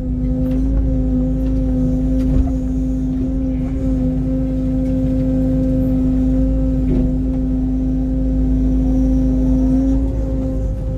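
Mini excavator running steadily under load, its diesel engine and hydraulics giving a constant drone with a low rumble, as the bucket digs into broken concrete and lifts. A couple of light knocks from the rubble about two and seven seconds in.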